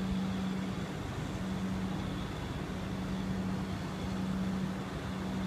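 Steady low drone of an idling diesel train, with a faint high whine above it.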